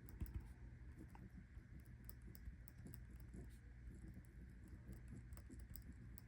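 Near silence with faint, scattered light ticks and taps of pen and paper handling on a desk over a low steady room hum.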